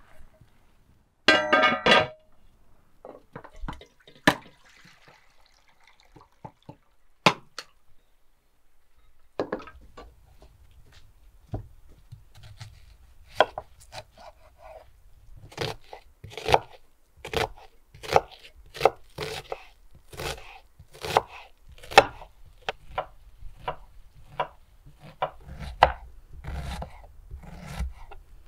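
Kitchen knife chopping an onion on a wooden cutting board: a run of sharp, irregular knocks, about one to two a second, that gets busier in the second half. A short, loud clatter comes about a second in.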